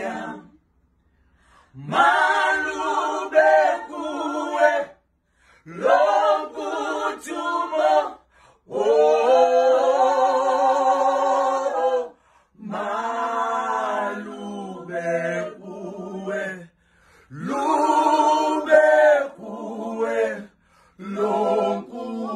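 An a cappella gospel vocal group singing in close harmony without instruments, in phrases of a few seconds with short pauses between them.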